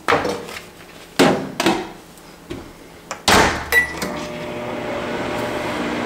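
A bowl is set into a microwave oven with a few knocks and clinks, and the door shuts with a clunk. After a short beep from the keypad, the microwave runs with a steady hum, heating for another 30 seconds.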